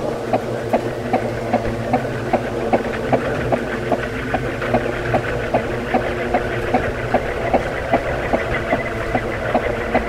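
Ceiling fan running: a steady motor hum with a regular tick or knock about two and a half times a second.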